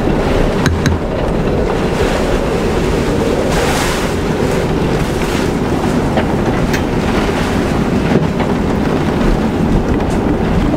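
Tropical cyclone wind blowing hard around a moored sailboat, heard from inside the cabin as a loud steady rush, with a few sharp clicks.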